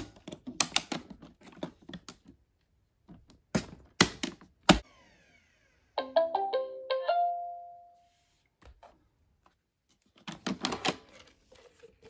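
Plastic clicks and knocks of a Roomba s9+ dustbin being seated and its lid shut. About six seconds in, the robot plays a short chime of quickly rising notes, the last one held and fading. Near the end, more clicks as the lid is opened and the bin lifted out.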